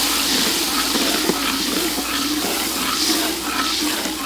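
Milky liquid poured in a steady stream into a hot wok of sauce, hissing and bubbling as it hits the oil, with the odd knock of a metal spatula against the wok.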